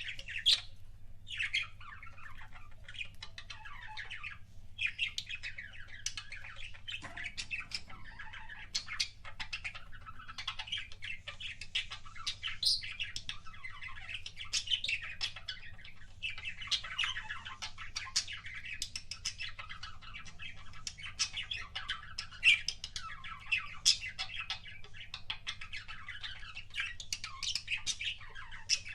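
Budgerigars chattering, a continuous run of rapid short chirps and squawks.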